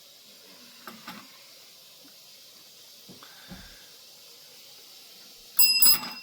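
A bell struck twice in quick succession near the end, ringing on with clear, lingering tones, rung by the cat to ask for more food. A few soft knocks come before it.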